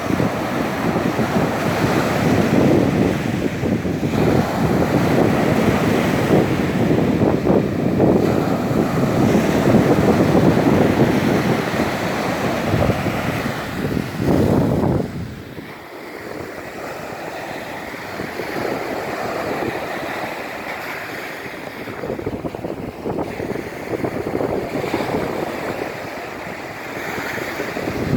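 Ocean waves breaking on a sandy beach: a long, loud surge of surf that falls away suddenly about halfway through, then a quieter wash that builds again near the end.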